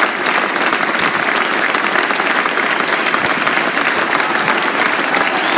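Crowd applauding steadily: many hands clapping with no let-up.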